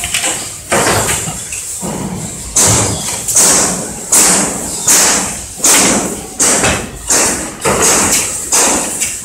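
A production machine cycling in a steady rhythm: a sharp stroke about every three quarters of a second, each fading before the next, starting about two and a half seconds in, with a few irregular knocks before it.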